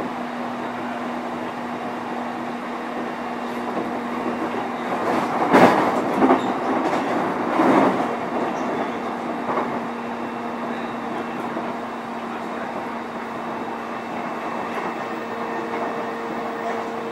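Running sound heard inside a JR East E531 series electric train's motor car: a steady hum over the constant rumble of wheels on rail. A run of louder clattering and thumps comes about five to eight seconds in, and a second, higher steady tone joins near the end.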